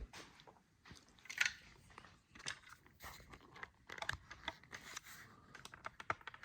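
Faint, irregular clicks, taps and rustles of objects being handled and set in place, a few sharper knocks among them.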